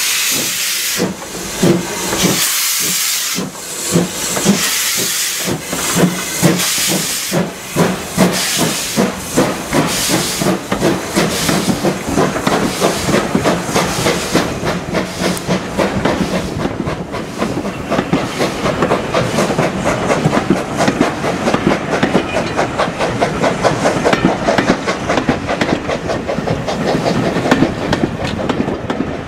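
BR Standard Class 2 2-6-0 steam locomotive 78019 starting away with its train: steam hissing at the cylinders, with a run of chuffs in the first ten seconds or so. Then the coaches roll past, their wheels clicking quickly over rail joints and points.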